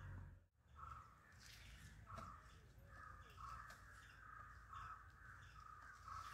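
Faint crows cawing repeatedly, a string of short caws about two a second starting about a second in.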